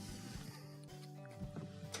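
Faint background music with a few light clicks.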